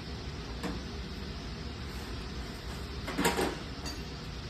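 Handling noise on a bench grinder that is switched off, likely from its tool rest being adjusted: a light click, then about three seconds in a louder, short scraping rattle.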